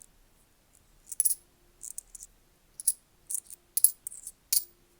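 British 10p coins clinking together as they are handled and sorted, a series of separate short metallic clinks, some ringing briefly.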